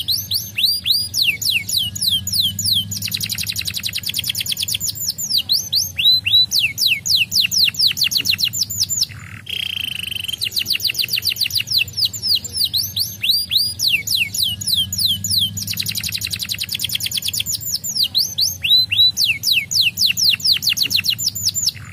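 Canary singing long fast trills of whistled notes that sweep downward, several notes a second. About nine seconds in, the trills break briefly for one held note.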